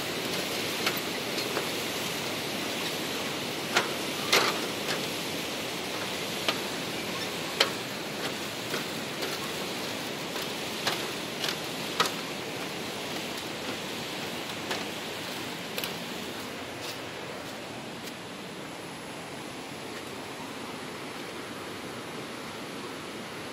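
Footsteps on a suspension footbridge's slatted deck: irregular sharp knocks and clatters, roughly one a second, that thin out and stop about two thirds of the way through, over a steady rushing noise.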